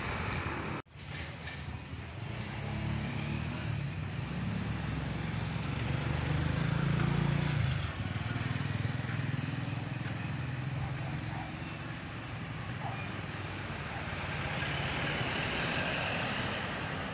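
Road traffic noise: engines of passing motor vehicles, with a brief cut-out of all sound about a second in.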